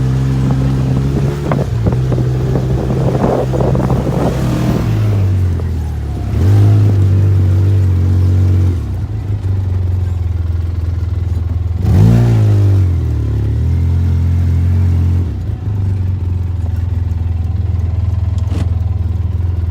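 Side-by-side UTV engine running while driving, its pitch stepping up and down with the throttle, with louder revving surges about a third and two thirds of the way through. There are knocks and rattles in the first few seconds.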